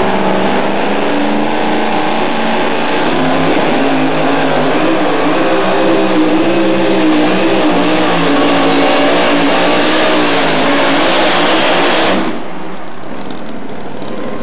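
Modified two-wheel-drive pulling truck's engine at full throttle, hauling a weight-transfer sled down a dirt track. The engine note holds high with slow rises and dips, then drops off suddenly about twelve seconds in as the throttle is let off at the end of the pull.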